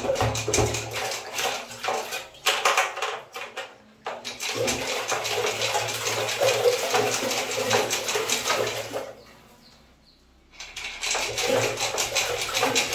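Water sloshing inside a half-filled electric storage water heater tank as the tank is shaken by hand to loosen the sediment from its enamelled inner lining. The sloshing pauses briefly about nine seconds in, then starts again.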